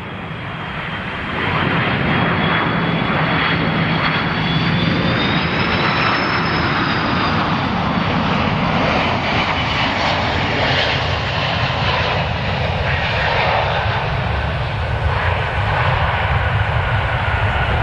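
Airbus A330-200 airliner's twin jet engines at approach power as it flies low past on landing: a steady jet rumble with a high engine whine that rises in pitch and then fades about six seconds in.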